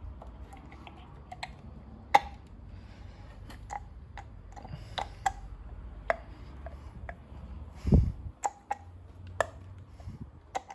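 Scattered small clicks and knocks as the spark plug lead and rubber plug cap are handled and pushed back onto the spark plug of a Honda CRF250L, with one louder low thump about eight seconds in.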